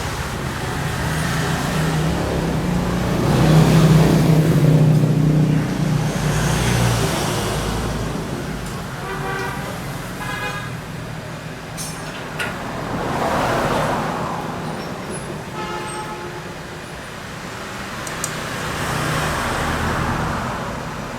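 Road traffic: vehicles passing one after another in slow swells, with two short horn toots about ten and sixteen seconds in.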